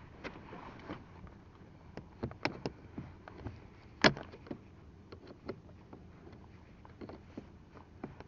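Scattered plastic clicks and scrapes of a small pry tool working at the broken mirror adjustment knob stub on a Volkswagen Jetta's door, with one sharp loud click about four seconds in.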